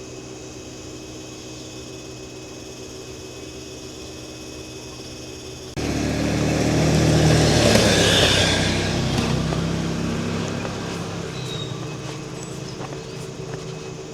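A steady low hum, then a motor vehicle's engine comes in suddenly about six seconds in, grows loudest a couple of seconds later as it passes close by, and fades away.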